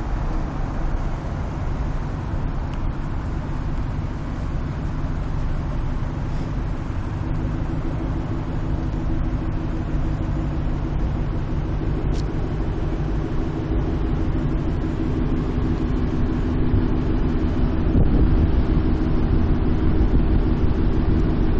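Ford Mustang GT's V8 idling with a steady low note that grows louder over the last several seconds, over the general noise of idling traffic.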